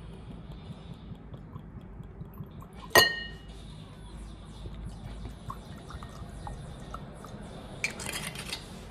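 A glass bottle clinks sharply against a drinking glass about three seconds in, ringing briefly, then liquor pours into the tumbler with faint trickling, louder near the end.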